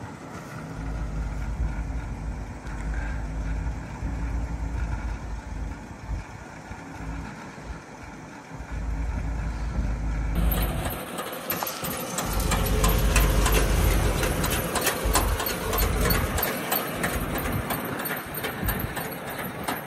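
Gasoline engine of a 1969 International Loadstar 1600 grain truck running at a steady idle while the dump box is let down. About halfway through the sound changes abruptly to a louder, harsher steady noise with rapid fine ticking.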